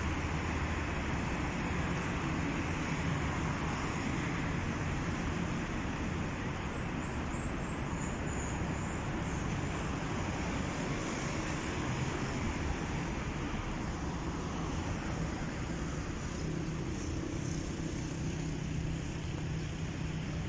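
Steady city street traffic noise: a continuous hum of cars on the road running beside the promenade, with no single vehicle standing out.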